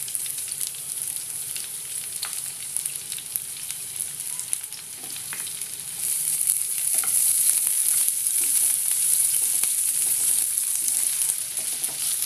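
Sliced onions sizzling in hot oil in a non-stick frying pan, stirred with a wooden spatula that clicks and scrapes against the pan. The sizzle gets louder about halfway through.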